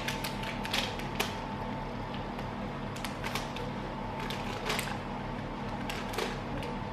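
Banana bread batter being poured and scraped from a mixing bowl into a loaf tin: irregular clicks and scrapes of a utensil against the bowl, over a steady hum.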